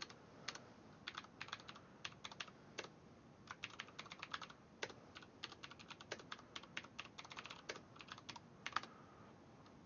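Faint typing on a computer keyboard: irregular runs of quick key clicks, with one louder click near the end.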